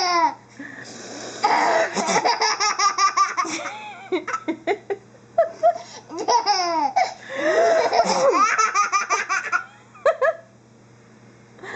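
A toddler giggling out of control in repeated bursts of rapid belly laughter, with short pauses between fits and a quiet stretch for about the last second.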